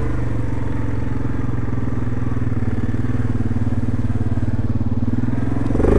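Yamaha Grizzly ATV engine running at a steady low speed while riding a trail, heard close up from the rider's seat.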